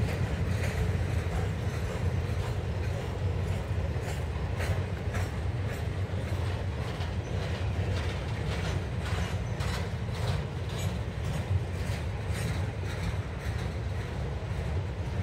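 Freight cars loaded with long welded rail rolling past: a steady low rumble, with irregular wheel clicks and clanks that come thicker in the middle and latter part.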